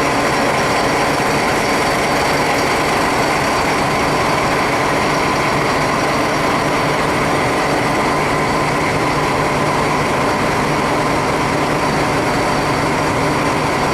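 SNCF BB 67400 diesel locomotive's engine idling, a steady, even running with a constant hum and no change in speed.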